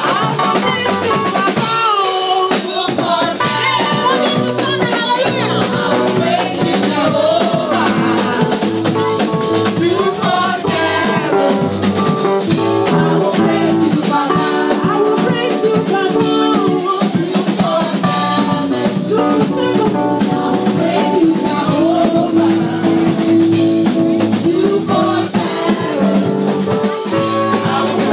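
Music with a steady beat on drum kit and a shaker-like rattle, with a melody line over it throughout.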